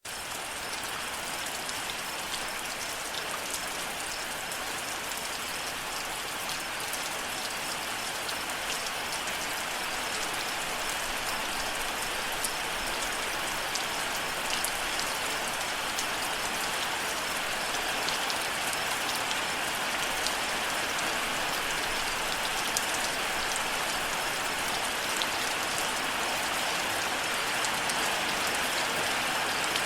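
Steady rain, with individual drops ticking close by over the even hiss of the downpour. It fades in at the start and grows slowly louder.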